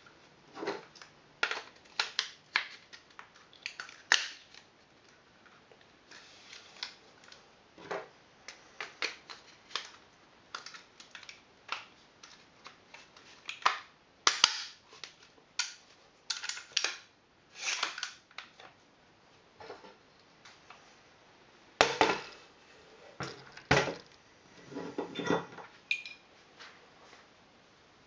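Parts of a Viper Tech gas blowback M4 airsoft replica being handled and fitted together by hand: irregular clicks, knocks and short scrapes of the receiver, barrel and handguard, with a few louder clacks near the end.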